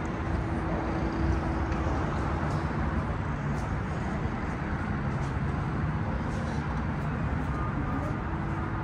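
Steady rumbling noise of road traffic.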